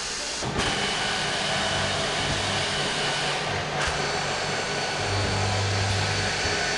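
Six-row multiple drilling machine running, a steady whir of its spindle motors with a low hum that comes in about half a second in.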